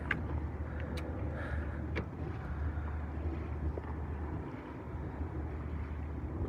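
Yacht's engine running steadily with a low hum, under wind noise, with a few sharp clicks in the first two seconds.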